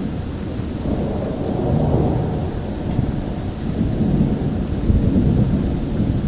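Thunder rumbling in long, low rolls that swell about a second in and again near the end, with rain falling underneath.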